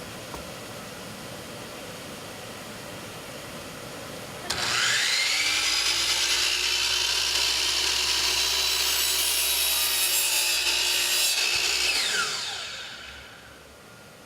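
Sliding compound miter saw's motor starting about four seconds in, whining up to full speed, running steadily for about seven seconds, then winding down in a falling whine as the blade coasts to a stop.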